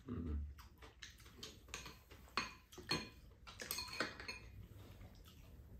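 Spoons and chopsticks tapping and scraping against bowls while eating: a run of irregular light clinks.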